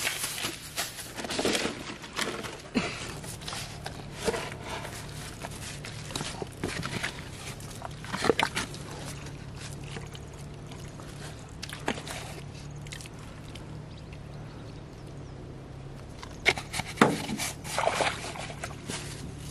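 Scattered clicks, knocks and rustles of hands handling plastic jars and bait on the riverbank, in short clusters every few seconds, over a steady low hum.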